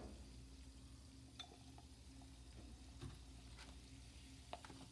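Faint fizzing of a baking soda and vinegar mixture in a glass beaker, with a few light clicks of glass as the beaker is handled and swirled.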